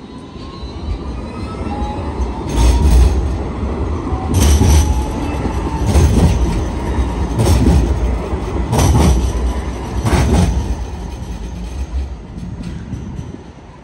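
Electric rail vehicle getting under way: its traction motor whine rises in pitch, then its wheels thud over rail joints about every second and a half.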